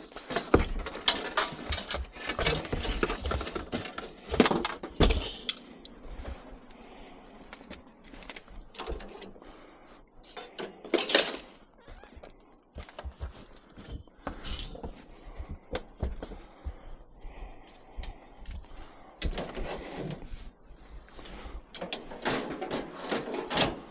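Scrap metal being handled: irregular clattering, clinks and knocks, with a few louder bangs scattered through and quieter stretches between.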